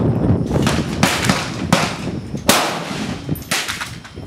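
Gunshots from other shooters on a rifle range: about four sharp reports at irregular spacing, each followed by a ringing echo tail, the longest one a little over halfway through.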